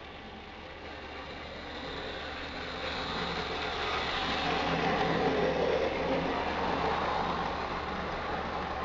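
Lima 1:45-scale model train running along its track, its motor whirring and its wheels rumbling on the rails; it grows louder as it comes past and is loudest about five to seven seconds in.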